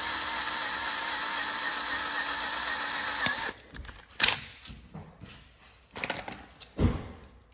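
Electric drill running steadily for about three and a half seconds while drilling out the rivet that holds a die-cast toy truck together, then stopping suddenly. A few sharp knocks and clicks follow.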